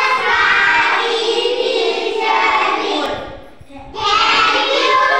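A class of schoolchildren singing together in unison, with a short break a little past three seconds in before they start again.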